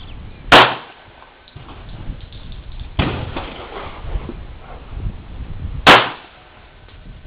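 Two loud shots from a Kimber TLE .45 ACP 1911 pistol, about five seconds apart, each with a short echoing tail. A fainter bang falls about halfway between them.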